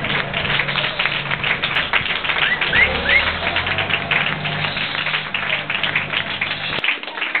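Applause: many hands clapping densely, with three short rising whistles about two and a half seconds in.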